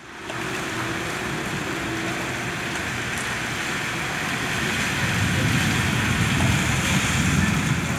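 Steady hiss of heavy rain falling on wet pavement, with a low rumble building from about halfway through.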